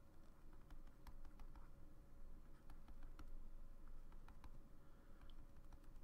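Faint, irregular light taps and clicks of a stylus on a drawing tablet as a dotted outline is drawn, over a faint steady hum.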